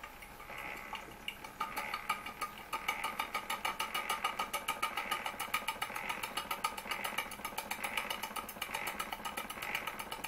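Bowman M101 model stationary steam engine running: a fast, even chuff of exhaust steam with a light click each stroke. It quickens over the first few seconds after being nudged into motion, then runs smoothly at a steady speed.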